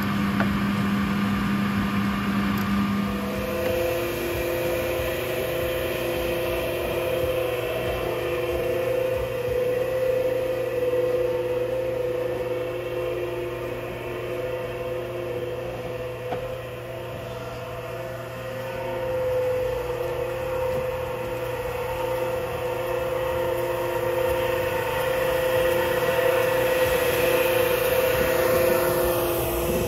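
Tomcat Magnum walk-behind floor scrubber running as it scrubs: a steady motor whine over a low hum. Its tone changes about three and a half seconds in, then holds steady.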